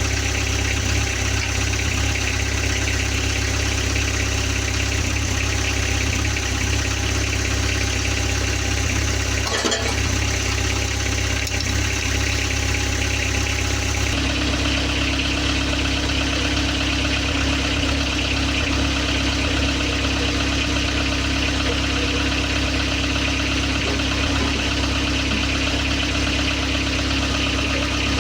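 Motorhome engine idling steadily through its newly fitted exhaust. About halfway through, the pitch pattern of the running sound shifts and then holds steady again.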